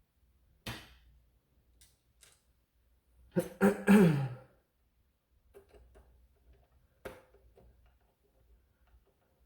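A person clears their throat with a short cough about three and a half seconds in. Two sharp clicks come about a second in and about seven seconds in, with faint small ticks between them, from handling the plastic blaster parts and tools.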